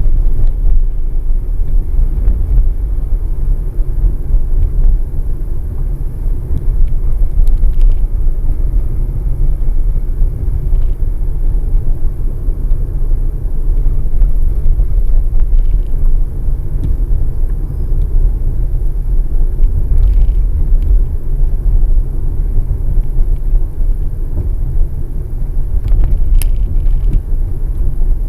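Steady low road and tyre rumble of a Toyota Estima Hybrid minivan on the move, with a few faint ticks and one brief sharp click near the end.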